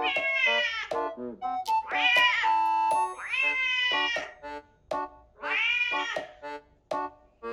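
Domestic cat meowing four times, each meow rising then falling in pitch, over light background music of short plucked notes.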